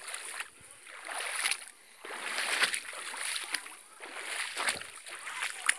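Feet wading through a shallow creek: water splashing and sloshing with each stride, swelling roughly once a second.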